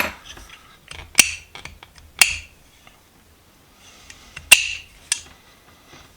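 Restored 10-inch steel slip-joint pliers being handled: several sharp metal clinks and clacks, each with a brief ring, the loudest about four and a half seconds in.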